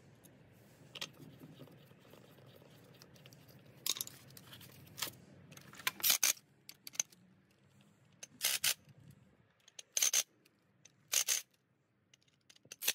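Cordless drill driver run in about eight short bursts from about four seconds in, driving screws to fasten a carpet kicker's head back together.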